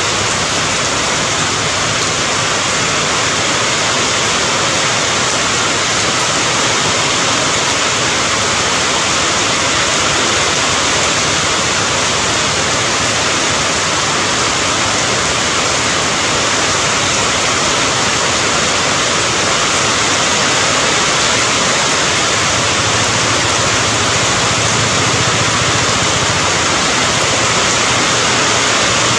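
Steady, heavy rain: a loud, even hiss with no separate drops, thunder or changes.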